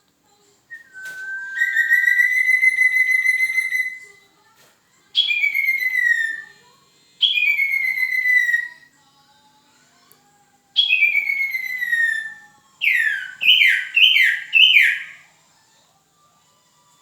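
Recorded calls of a sirtu, a small owl, played as a lure to make wild owls answer. One long steady high call comes first, then three separate downward-sliding calls, then a quick run of three falling notes near the end.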